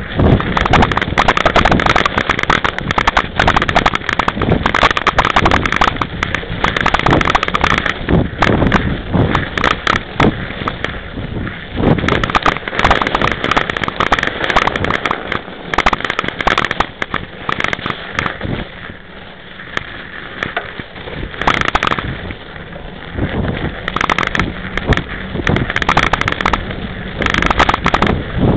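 A 26-inch-wheel mountain bike riding over bumpy snow: a rapid, irregular clatter and knocking as the bike and its mounted camera jolt, over the crunch of the knobby tyre in the snow and wind on the microphone. The clatter eases off for a few seconds past the middle, then picks up again.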